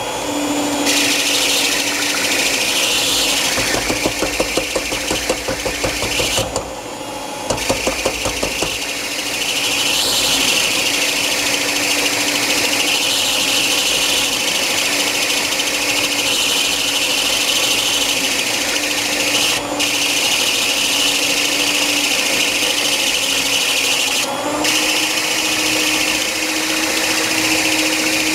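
Electric hand mixer running steadily, its beaters whipping butter and sugar in a stainless steel bowl while the creaming turns pale and fluffy. Rapid ticking of the beaters against the bowl between about four and nine seconds in, with a brief dip in the motor about seven seconds in, and the motor pitch steps up slightly near the end.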